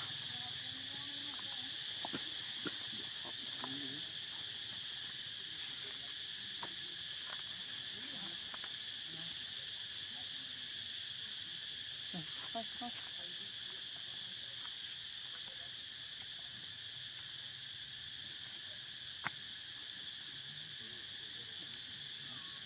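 Insect chorus droning steadily at a high pitch, with a few faint clicks scattered through and one sharper click in the later part.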